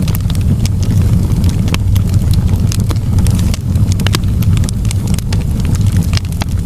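Wood fire in a fireplace crackling: many sharp, irregular pops and snaps over a steady low rumble of the flames.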